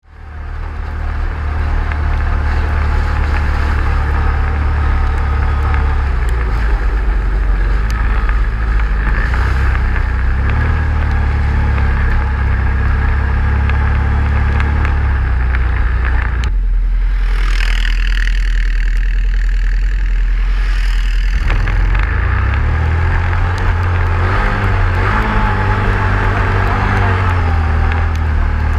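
Hemi V8 off-road vehicle engine running under way with a deep, steady rumble. For about five seconds past the middle the rumble drops away and a rushing hiss takes over, then the rumble comes back.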